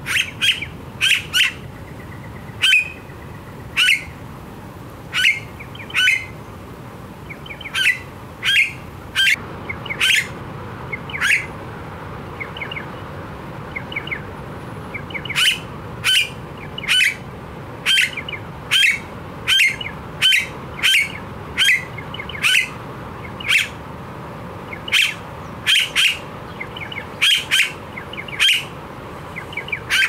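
Blue-faced honeyeater calling: short, loud calls repeated about one or two a second, with a pause of a few seconds in the middle.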